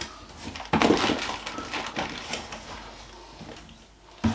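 Coiled sprayer hoses being pulled up out of a cardboard box, rustling and scraping against the cardboard, loudest about a second in, with a single knock near the end.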